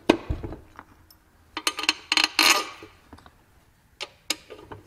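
Scattered metal clinks and knocks of a Malossi CVT cover being fitted back onto a scooter engine case, with a short rattle about two and a half seconds in.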